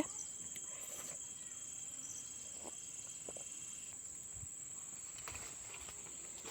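Quiet background with a steady high-pitched insect trill, with a few faint soft ticks scattered through it.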